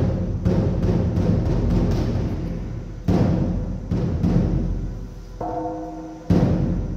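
Buddhist ritual percussion: a temple drum beats heavily, with a run of quicker strokes that crowd together into a roll. About two-thirds through, a small gong or bell rings a steady tone for about a second before the next heavy drum beat.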